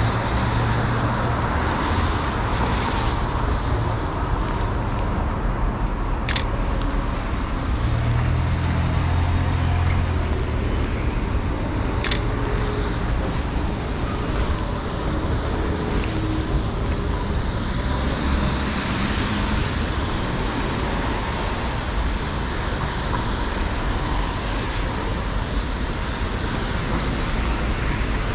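Downtown street traffic on a wet road: a steady hiss of tyres and engines, with a heavier vehicle's engine rumble passing near the start and again about nine seconds in. Two sharp clicks about six seconds apart, the shutter of a Sony A7R2 camera.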